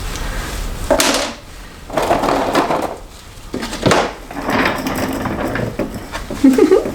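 Rustling and scraping of hair being wound onto vintage plastic snap-on rollers, with a sharp plastic click near the middle.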